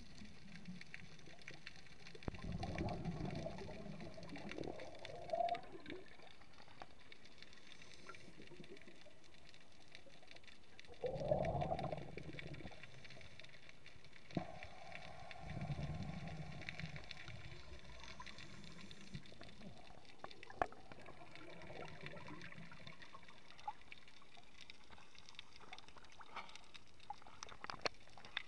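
Scuba regulator exhalation bubbles heard underwater through a camera housing: a muffled bubbling rush every few seconds, with quiet stretches and a few faint clicks between.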